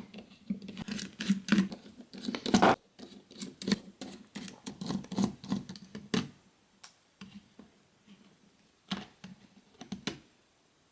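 Small plastic clicks and scrapes as a Nokia 6630's casing is pried and unclipped by hand, a quick flurry of clicks for about six seconds, then a few separate clicks.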